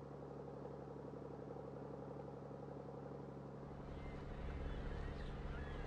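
Boat engine running steadily, an even low hum, growing a little louder and fuller from about halfway through.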